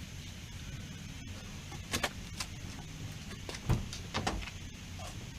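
A few short squirts of Blaster penetrating fluid from an aerosol can onto rusted strut bolts: two quick hisses about two seconds in, then two more a little later.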